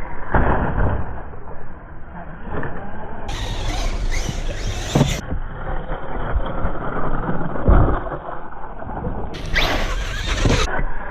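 Radio-controlled cars driven hard over rough ground: motors running and tyres on dirt, with several sharp knocks from jumps and bumps.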